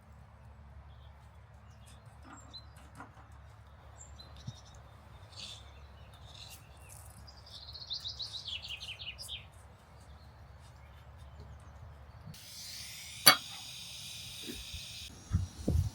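A songbird calling: a quick run of notes falling in pitch, about halfway through, over a faint outdoor background. Later comes a hissing rustle lasting a couple of seconds, with one sharp click, the loudest sound, in the middle of it.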